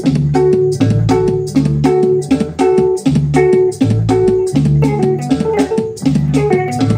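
Electric guitar and bass guitar playing together: a quick, evenly repeating riff of plucked notes over a steady bass line.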